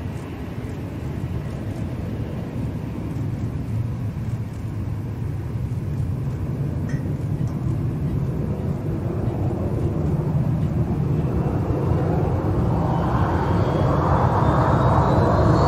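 Jet airliner engines rumbling and growing steadily louder as the aircraft nears, with a whine rising in pitch toward the end.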